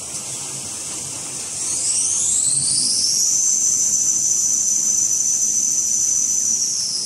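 Toilet paper production line's drive motor whining. About two seconds in it rises in pitch as the machine speeds up, holds a steady high whine, then drops in pitch near the end as it slows, over a steady high hiss of the running machinery.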